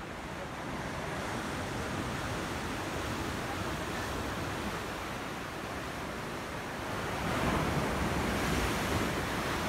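Ocean surf washing against a sea wall, with wind. The sound swells louder about seven seconds in.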